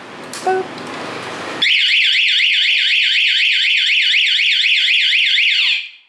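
Aftermarket motorcycle anti-theft alarm on a Honda MSX, set off by the parked bike being handled. A short beep comes first, then about a second and a half in a loud, rapid up-and-down warbling siren, which cuts off abruptly near the end.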